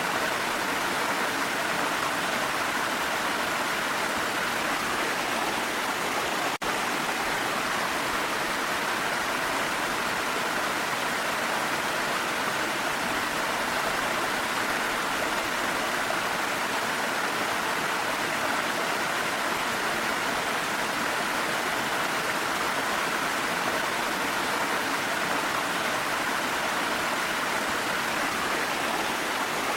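Steady rush of a waterfall mixed with falling rain, an even, unbroken wash of water noise, with one momentary dip about six and a half seconds in.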